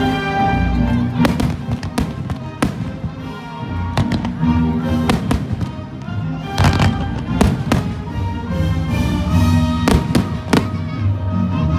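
Fireworks bursting in a rapid, irregular series of bangs over loud orchestral theme music.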